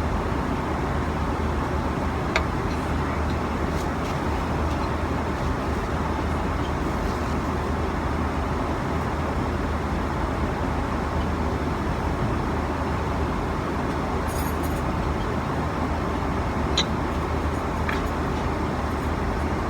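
Steady roar of an airliner cabin in flight, engine and airflow noise holding level throughout, with a few faint light clicks.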